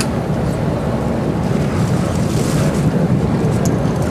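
Steady wind buffeting the microphone over the low rumble of a boat on open water.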